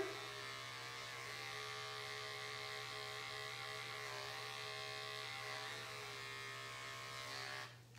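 Andis adjustable-blade electric dog clipper, set to a 10 blade length, running with a steady hum as it is drawn through a poodle's coat in a sanitary trim. The hum stops near the end.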